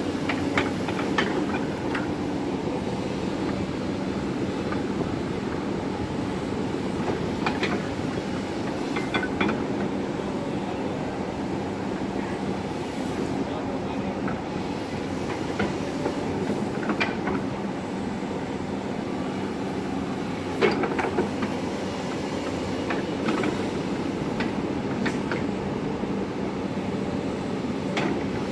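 Tracked excavator's diesel engine running steadily at work, with occasional sharp knocks and clanks.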